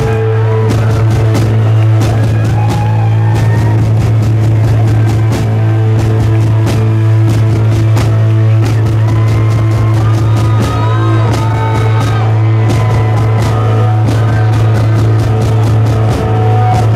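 Live rock band playing an instrumental passage: fast, driving drums and electric guitar with bent notes over a held low bass note, the drumming getting busier in the second half.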